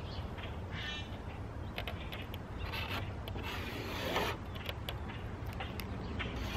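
Permanent marker squeaking and scratching as it is drawn along the edge of a window trim piece onto half-inch foam board, in short uneven strokes.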